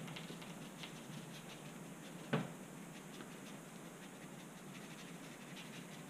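Paintbrush dabbing and scrubbing acrylic paint onto a painting surface: faint, irregular scratchy taps, with one sharper knock about two seconds in.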